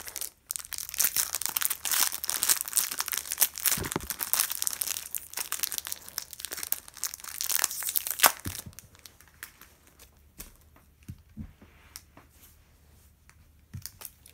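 Thin clear plastic wrapper crinkling and tearing as it is pulled off a 30mm mini picture cube: dense crackling for the first eight seconds or so, then sparser, quieter crinkles and clicks.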